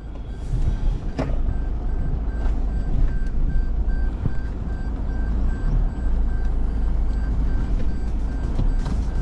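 Toyota Hilux pickup crawling off-road, a heavy low rumble from the engine and drivetrain with scattered knocks and jolts from the body. A rapid electronic beeping repeats through it.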